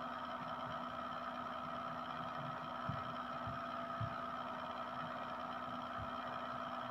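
Faint steady hum made of several held tones, with two faint low knocks about three and four seconds in.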